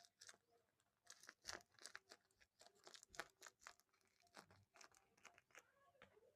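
Faint, scattered crinkles and small clicks of plastic blind-bag packaging being handled.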